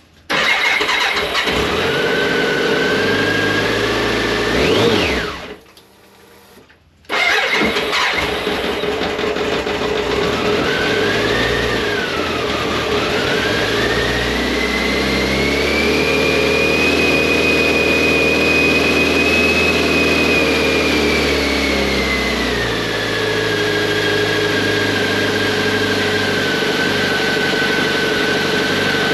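BMW K1100LT's fuel-injected inline-four engine started on the starter and running, freshly tested after a fuel pump replacement. It is blipped, cuts out about five seconds in and is restarted a moment later. Its speed then rises and holds higher for about eight seconds before settling back to a steady idle.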